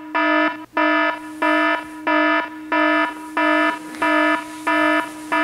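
iPhone alarm going off: a buzzy beep of one steady pitch, repeating evenly about three times every two seconds.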